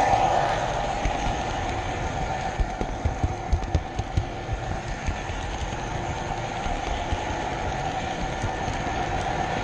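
Model train running along the layout track, heard from a camera riding on the train: a steady motor whine over a low rumble, with a quick run of clicks over rail joints about three to four seconds in.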